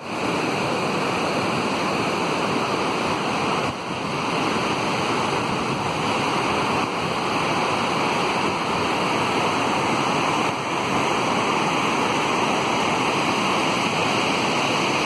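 Heavy, turbulent floodwater rushing and churning through a river channel, a steady, dense rush of water.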